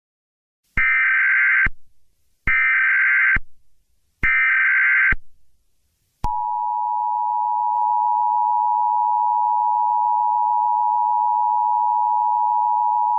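Emergency Alert System tones: three short bursts of the SAME header's data tones, each under a second long, followed about six seconds in by the steady two-tone EAS attention signal, which holds without a break.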